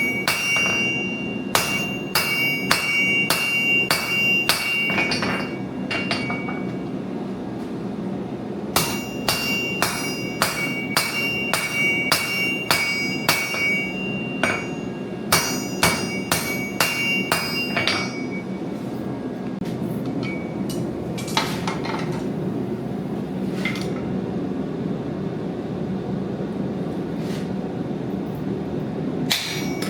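Hand hammer striking metal on an anvil, about two blows a second in three runs separated by short pauses. The blows ring with a clear metallic tone. A few single strikes follow, over a steady low rumble.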